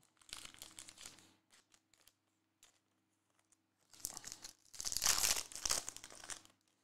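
Hands crinkling and tearing open the foil wrapper of a 2022 Prizm Premier League Breakaway trading-card pack. There is a short patch of crinkling at the start and a few light clicks, then a louder stretch of crinkling and tearing from about four seconds in until near the end.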